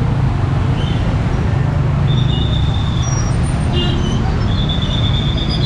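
Steady street traffic: motorcycle and car engines running along a flooded road, with a few short high-pitched tones over the top.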